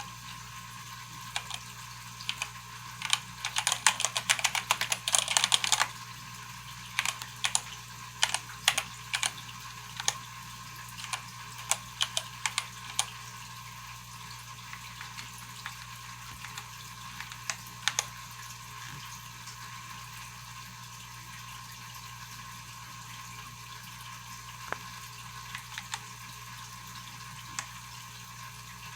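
Keystrokes on a Keychron K8 mechanical keyboard with Gateron switches: a quick flurry of presses about four to six seconds in, then scattered single presses that thin out to a few near the end. A faint steady hum sits underneath.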